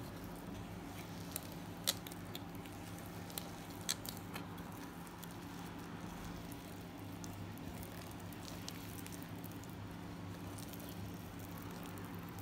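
A hand kneading soft, sticky naan dough in a glass bowl: faint squishing with a few light clicks and taps, mostly in the first few seconds. A steady low hum runs underneath.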